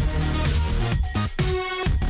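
Electronic dance music with a strong bass beat and synth notes. Near the end the bass drops out briefly, leaving a held synth note.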